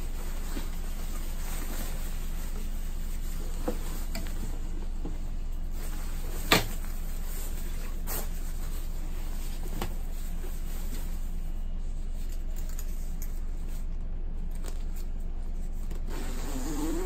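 Quilted nylon down jacket rustling as it is handled and lifted out of a cardboard box, with a few soft knocks, the sharpest about six and a half seconds in, over a steady low hum.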